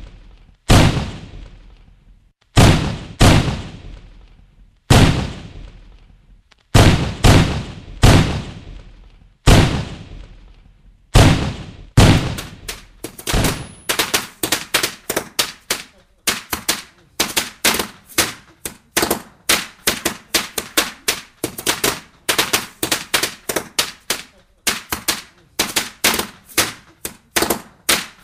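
Fireworks exploding: single loud bangs, each dying away over about a second, spaced a second or two apart; about halfway through they speed up into a rapid volley of several bangs a second.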